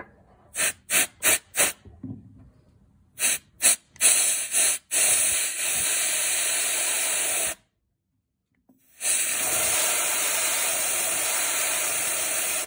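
Can of Ultra Duster canned air spraying through its straw: a run of short spurts, then two long steady hisses of about three to four seconds each with a pause of about a second and a half between. The cold blast chills the heat-riser spring so the exhaust manifold heat valve releases, as it does when the engine cools.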